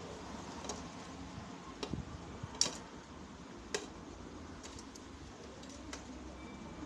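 Steady background hiss with a few scattered sharp clicks and ticks, the loudest a little over halfway through.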